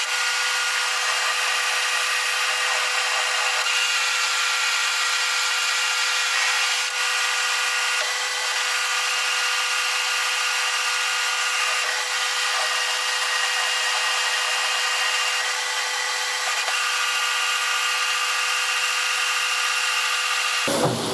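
Boxford metal lathe running under power with its carriage feeding along the leadscrew on temporarily repaired half nuts. It makes a steady mechanical whine with several constant tones and stops near the end. The half nuts are holding the feed: the owner says it works.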